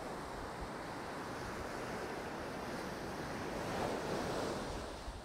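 Ocean surf washing onto a sandy beach, a steady wash with one wave breaking louder about four seconds in.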